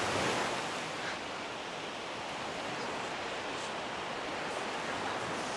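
Ocean surf washing onto a sandy beach: a steady rush of breaking waves, a little louder in the first second.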